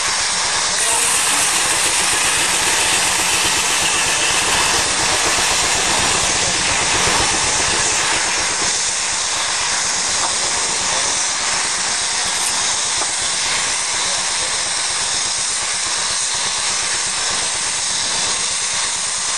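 A steam-powered sawmill running: a 70 horsepower Nichols & Shepard steam engine driving a 60-inch circular saw, heard as a loud steady hiss. It is fuller for roughly the first eight seconds, then eases a little.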